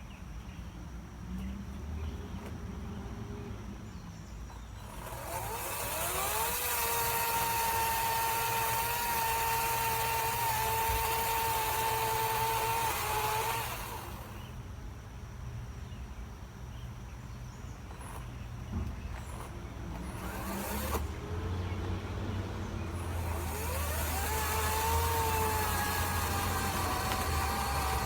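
EGO POWER+ 16-inch 56V battery chainsaw speeding up with a rising whine, running steadily for about eight seconds with its chain hissing, then stopping. It starts again near the end, with the pitch sagging slightly as it runs.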